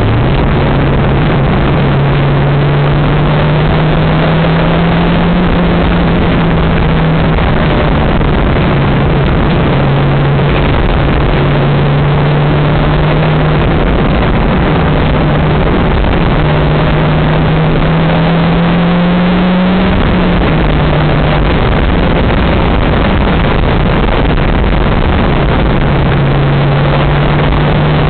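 Lotus Elise engine driving at road speed under a heavy rush of wind and road noise, its hum climbing slowly with speed and breaking off or dropping in pitch several times, as at gear changes or lifts off the throttle.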